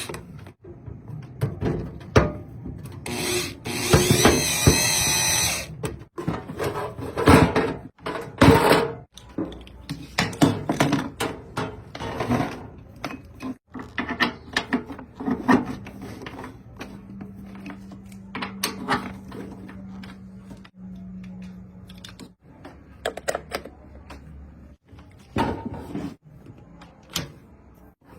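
A power tool runs briefly, then stops, followed by a long series of clicks and knocks from tools and parts being handled, with a steady low hum for several seconds in the middle.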